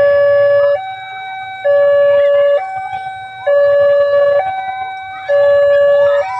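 Electronic warning siren of a manual railway level-crossing gate, alternating between two tones, low and high, each held just under a second, the lower tone louder. It warns that a train is approaching and the crossing is closing.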